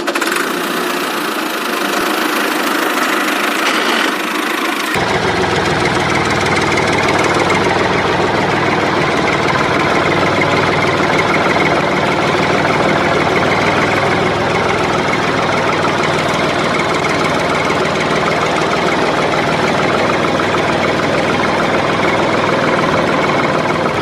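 Tractor engine running steadily. The sound becomes fuller and lower about five seconds in.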